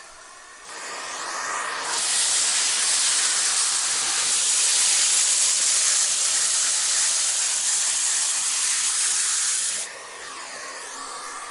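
Vacuum cleaner running, its airflow a rushing hiss. The hiss swells over the first two seconds, holds loud and steady, and drops suddenly near the end.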